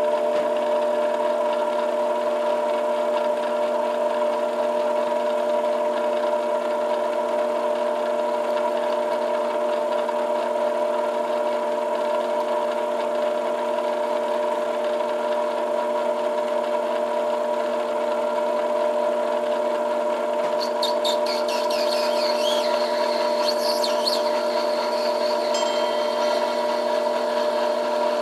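Metal lathe running steadily with a constant whine of several steady tones from its motor and drive. About twenty seconds in, the cutting tool bites the spinning acrylic stem for a few seconds, adding a higher-pitched scraping as the epoxied spacer ring is trimmed flush.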